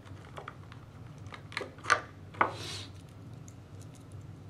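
Clear plastic packaging crinkling and clicking as it is handled, with a few sharper crackles and a short swish about two seconds in.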